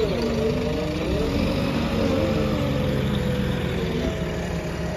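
JCB 3DX backhoe loader's diesel engine running under load as its front bucket digs into a gravel pile and lifts, the engine note wandering up and down over a steady low hum.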